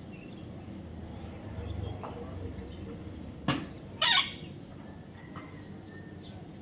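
Baby parrot giving one short, harsh squawk about four seconds in, just after a sharp click, with a few faint chirps around it.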